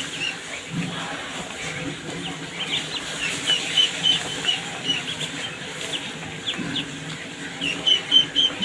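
Ducklings peeping in short, high chirps, several a second, coming in runs, with a steady string of peeps near the end.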